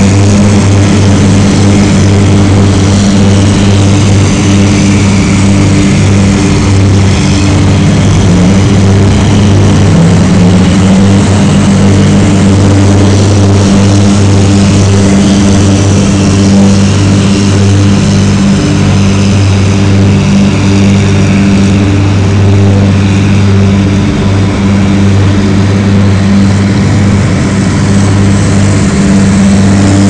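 Øveraasen airport snow-clearing trucks, with heavy engines and towed rotary sweepers and blowers, running past together. It makes a loud, steady machine drone with a deep constant hum under a rushing noise.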